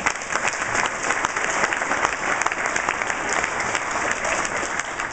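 Applause from a roomful of people: many hands clapping at once, steady throughout.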